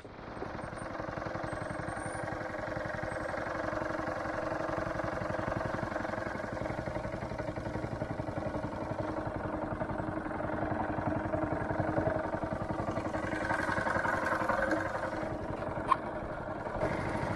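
Small gasoline engine driving a long-tail propeller shaft on a wooden canoe, coming in abruptly and then running steadily under way. A single sharp click sounds near the end.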